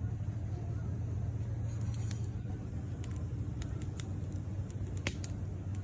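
Wood campfire burning down to coals, giving off several sharp, separate crackles and pops over a steady low rumble.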